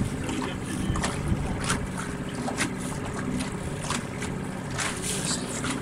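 Wind buffeting the microphone over the rush of water along the hull of a small sailboat under way, with repeated short splashes of water against the hull.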